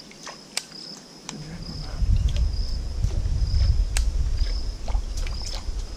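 An insect chirping: a short high note repeated about every half second or so, with scattered sharp clicks. From about a second and a half in, a loud low rumble covers it for about four seconds.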